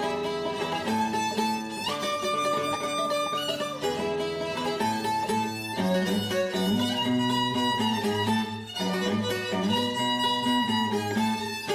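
Music: a violin plays a melody of held, sliding notes over a plucked guitar accompaniment.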